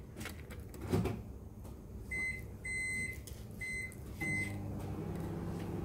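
Microwave oven beeping four times from its keypad, the second beep longer, then starting up about four seconds in with a steady hum as it cooks brown rice.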